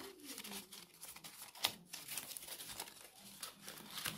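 Paper rustling and crinkling in irregular small crackles as a paper model of a dress ruffle is handled and folded.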